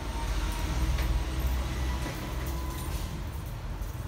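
Low, steady machine rumble that swells about a second in.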